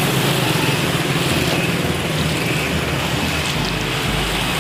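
A motor vehicle engine running on a waterlogged street amid a steady hiss, with a deeper rumble joining about three and a half seconds in.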